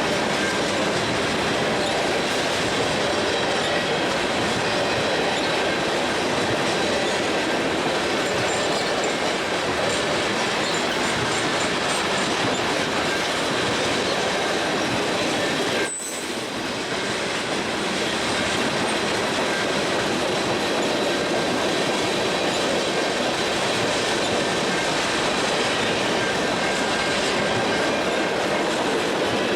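Freight train rolling by: steel wheels on rail with a steady clickety-clack and a thin, steady wheel squeal over it. The sound breaks briefly about halfway through.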